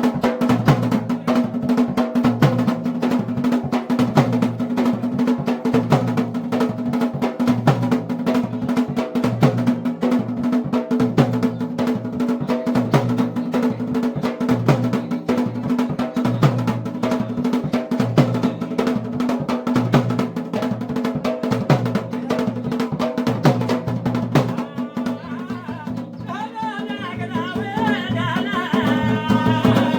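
Garhwali folk drumming for a mandan, dhol and damau played in a fast, dense rhythm. Near the end the drumming thins and a wavering melody, singing or a pipe, comes in over it.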